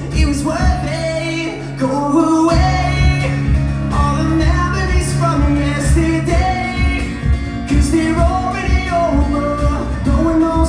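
Live rock band playing: strummed acoustic guitar, electric guitar and a cajón beat, with a male voice singing the melody.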